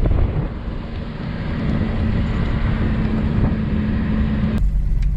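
Manual-transmission Jeep running as it drives along a dirt trail, engine and rolling noise with a steady hum joining partway through. The sound changes abruptly near the end.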